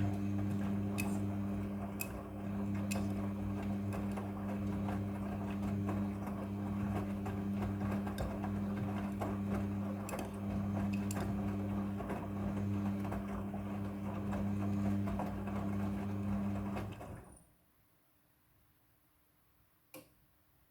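Front-loading washing machine running: a steady motor hum with a churning, watery rattle on top, which cuts off abruptly about 17 seconds in. A single faint click follows near the end.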